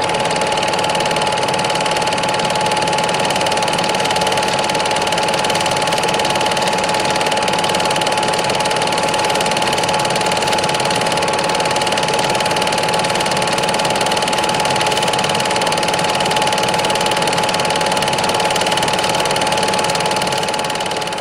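A steady mechanical whir over hiss, carrying a constant hum tone, that fades out near the end.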